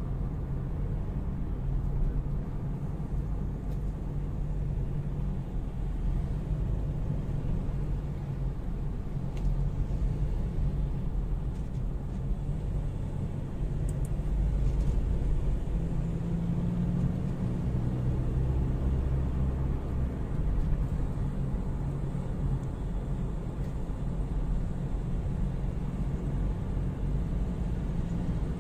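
Inside the cab of a 2018 Ford Ranger with the 2.2-litre four-cylinder turbodiesel on a road test, engine and road noise make a steady low rumble. The rumble builds a little in the second half as the truck speeds up again. The engine is pulling freely now that the cracked turbo intake hose has been replaced.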